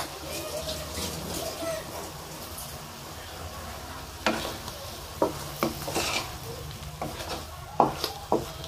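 Wooden spoon stirring shrimp and chicken livers in a wok over a light sizzle. From about four seconds in, the spoon knocks and scrapes against the pan several times.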